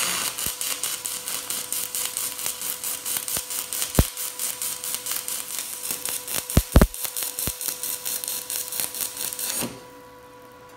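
A 7018 stick electrode welding in pulse mode on an HTP Inverarc 200 TLP inverter at about 125 amps. The arc's steady crackling hiss swells and dips evenly about five times a second, with a few sharp pops around the middle, and stops abruptly near the end when the arc is broken.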